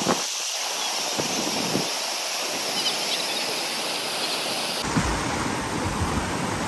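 Water rushing steadily over a low concrete weir, a continuous wash of noise; about five seconds in, the sound turns fuller and deeper.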